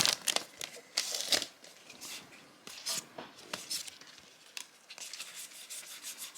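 Trading-card booster pack wrapper being crinkled and torn open by hand, in short irregular rustles, loudest about a second in.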